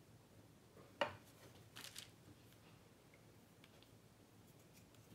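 Near silence, broken by one sharp click about a second in and a few faint light taps shortly after, from a small watercolor paint tube being handled and put away.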